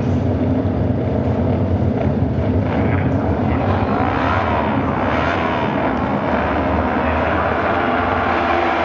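Several auto-race motorcycle engines running hard as a pack laps the oval, a loud steady mass of engine noise. Around the middle, pitches rise and fall as bikes pass.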